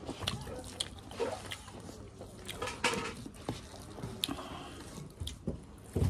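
Wet, scattered clicks and squishes of eating by hand: rice and chilli chicken being mixed with the fingers on a plastic plate, with chewing and lip smacks.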